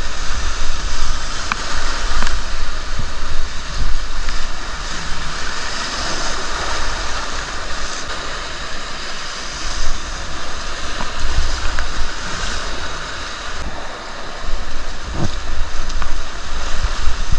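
Rushing river water, a steady loud wash of noise, with wind buffeting the microphone in uneven gusts.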